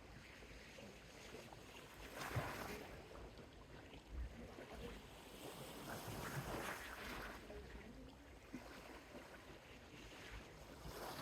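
Small Mediterranean waves washing softly onto the shore, one surge about two seconds in and a longer one around six seconds, over a low rumble.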